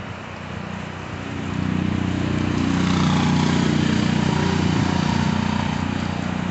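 A three-wheeler auto-rickshaw's engine approaching and passing close by on a wet road, growing louder from about a second and a half in, loudest around the middle, then fading. Steady rain hiss underneath.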